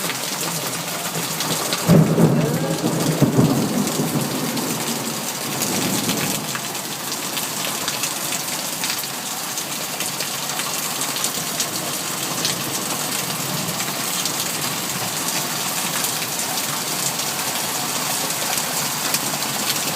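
Heavy rain pouring steadily in a thunderstorm. A sudden loud thunderclap about two seconds in rumbles away over a few seconds, with a smaller roll of thunder a little later.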